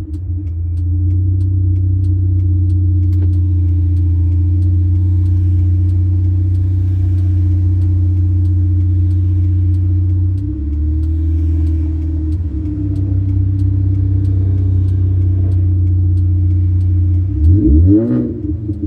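Sprintex-supercharged 2004 Mini Cooper S 1.6-litre four-cylinder engine and exhaust running steadily under way. The engine note drops slightly about ten seconds in, and near the end it swings up and back down as the revs change.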